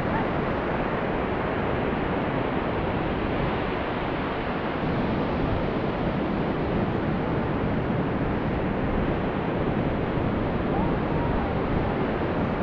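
Ocean surf breaking and washing up the beach, mixed with wind on the microphone: a steady, even rushing.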